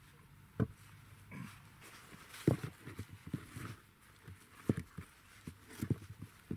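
Sandstone blocks knocking and clunking against each other as they are set by hand onto a stone pile, with four sharper knocks among lighter clunks.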